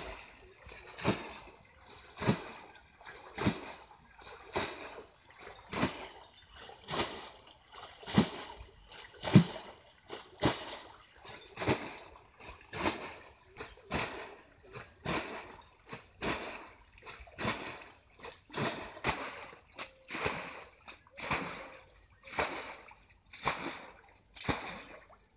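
Shallow muddy pond water splashing in a steady rhythm, about one splash every second or so, as a hand fishing net is worked through it.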